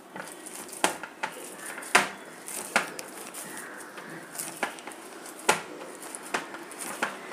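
Several sharp, irregularly spaced taps and clicks against a steel plate as hands gather and press a soft rice-flour-and-greens dough into balls.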